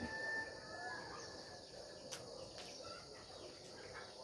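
Steady high-pitched insect chorus, with one brief high call near the start.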